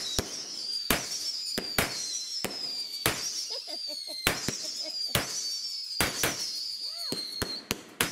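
Ground firework spraying sparks and firing shots upward: a rapid run of sharp cracks, two to three a second, each followed by a high whistle that slides down in pitch, over a steady hiss of sparks.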